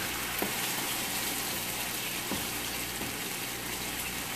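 Sliced sausage in barbecue sauce sizzling in a frying pan, a steady hiss, with a couple of faint taps as a silicone spatula stirs it.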